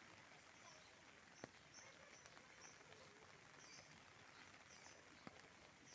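Near silence: a faint, steady hiss of light rain, with faint high bird chirps repeating throughout and two soft clicks.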